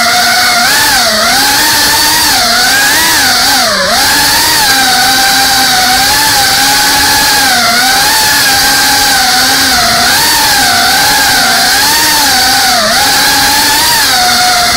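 FPV quadcopter's brushless motors and propellers whining loudly, the pitch rising and falling as the throttle changes, with sharper dips about one and four seconds in.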